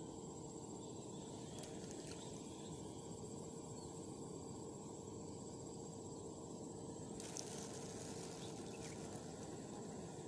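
Insects trilling steadily at one constant high pitch over low outdoor background noise, with a short rustle about seven seconds in.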